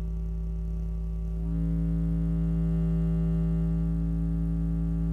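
Stock 6.5-inch Bose subwoofer of a 2011 Mazda 3 playing a steady 55 Hz sine test tone, with a buzzing hum of overtones on top. About one and a half seconds in it steps up louder and the buzz spreads higher. The hum is the iPad source clipping the head unit's input.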